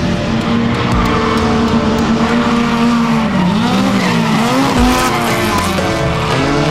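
Toyota AE86 Corolla drifting: the engine is held at high revs, with tyres squealing. The revs dip and climb again around the middle. Music plays underneath.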